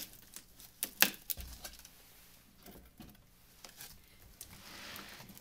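Hands handling a taped cardboard shipping box: a sharp knock about a second in, then scattered light taps, and a short rustle of plastic or cardboard near the end.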